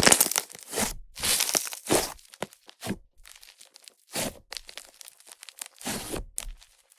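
Airy clay-and-butter slime made with Yoda clay being squeezed, folded and stretched by hand. Its trapped air pops in a fizzy, crackling sizzle, in about six irregular bursts.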